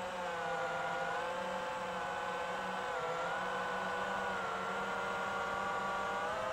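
FPV drone's brushless motors and propellers whining, the pitch sagging and rising with the throttle, dipping about three seconds in.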